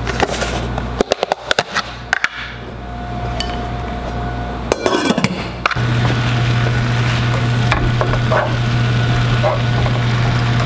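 Clinks and knocks of a stainless pot and lid being handled, then a glass lid lifted off a skillet and pork chops frying with a steady sizzle as they are turned, over a steady low hum.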